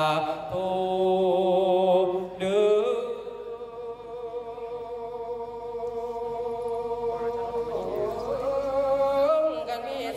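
A man's voice chanting a su khwan blessing verse in the Isan melodic style, drawing the words out into long held notes with a slowly wavering pitch, then sliding to a new note near the end.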